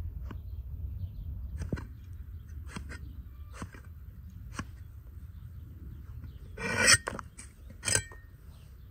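Cleaver chopping eggplant on a wooden stump, about five single chops a second or so apart. Near the end comes the loudest sound: eggplant pieces tumbling into a metal pot, twice.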